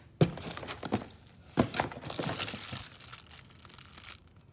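Packaging crinkling and tearing as turbo kit parts are unwrapped and handled, with a few sharp clicks in the first two seconds.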